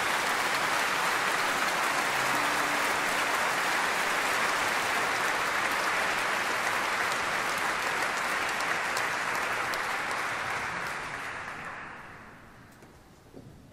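Large concert audience applauding, the dense clapping steady at first, then thinning and dying away near the end.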